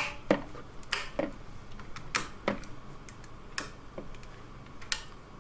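About nine sharp, irregular clicks and taps of small PC components being handled and fitted, roughly two a second.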